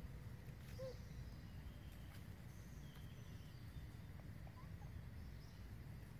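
Quiet outdoor ambience: a steady low rumble with faint, distant bird calls and one short, faint chirp about a second in.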